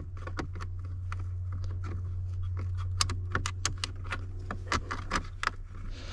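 Irregular small clicks and taps of a hand tool and plastic dash trim being worked, as the small screws of the security gateway module are driven back in. A steady low hum runs underneath.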